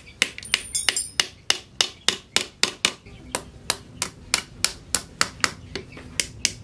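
Quick, even hammer taps on the metal pins that rivet wooden handle scales to a billhook's tang, peening the pin ends over against a steel post anvil: sharp metallic taps, about three to four a second.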